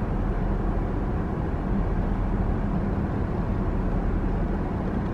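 Steady low hum of a car heard from inside its cabin, with no knocks or changes in level.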